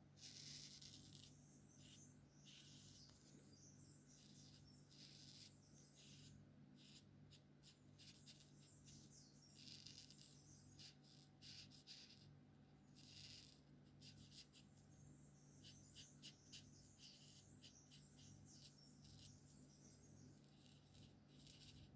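Alcohol markers stroking across paper during colouring: faint hissing strokes that come one after another, some brief and some about a second long, over a steady low hum.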